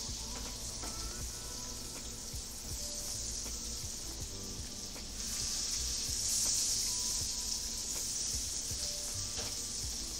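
Butter and lemon juice pan sauce sizzling steadily in a frying pan, the sizzle growing louder about five seconds in.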